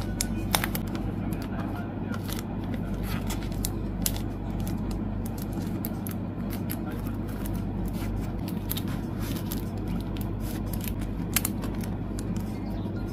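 Clear plastic photocard sleeves crinkling and clicking as cards are handled, a sleeve peeled open and cards slid in, in many short sharp ticks. Under it runs a steady low background hum.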